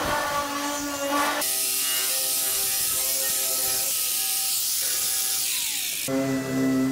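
Dual-action (DA) sander running with 80-grit paper across the sheet-metal body of an early-1950s refrigerator: a steady whine with a hiss of sanding. Its pitch and character change abruptly about a second and a half in and again near the end.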